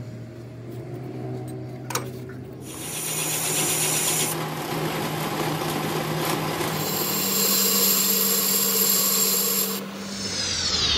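Metal lathe running with a steady motor hum as the cutting tool turns a steel tube, giving a hissing cutting noise that starts a few seconds in and grows louder. There is a sharp click about two seconds in and a falling whine near the end.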